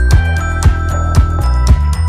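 Background music with a steady beat, about two strikes a second under sustained instrumental tones.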